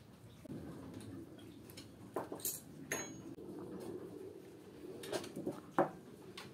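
Dishes and metal utensils clinking: a few sharp knocks, like a ladle against a metal pot and plates set down on a table, one with a short metallic ring about three seconds in.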